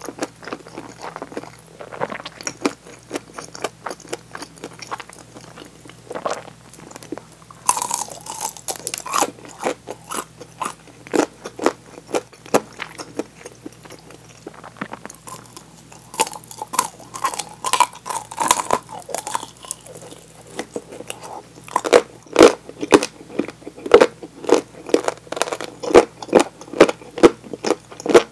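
Someone chewing and biting crispy fried chicken drumsticks, with wet mouth clicks and bursts of crunching. The chewing grows louder and denser in the last few seconds.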